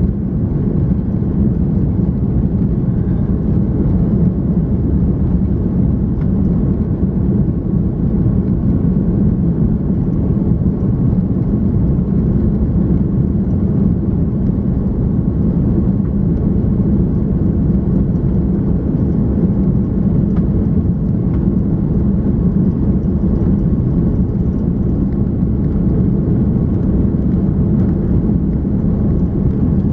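Steady low rumble of an Airbus A340-300's CFM56 engines and airframe, heard inside the cabin, with no change in pitch or level.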